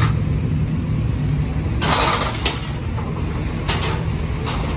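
Vehicle engine running steadily at low revs as a Toyota sedan is driven up the steel ramps onto a car-carrier trailer. A short rush of noise comes about two seconds in, and a few sharp clanks follow.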